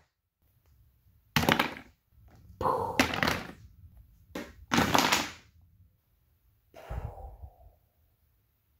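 Four separate explosion blasts: the dynamite going off and blowing apart the rebuilt toy bleachers.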